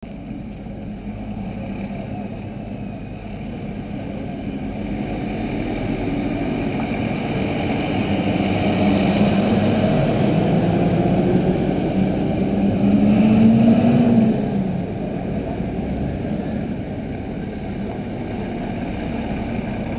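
Heavy lorry diesel engines moving slowly past at close range. A tanker lorry is loudest, its engine note rising and swelling before it drops away sharply about fourteen seconds in, leaving a lower steady engine sound as a flatbed lorry comes up.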